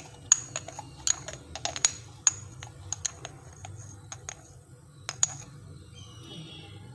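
About twenty light, sharp clicks and taps in an irregular run for about five seconds, from small kitchen utensils and containers being handled while measuring ingredients.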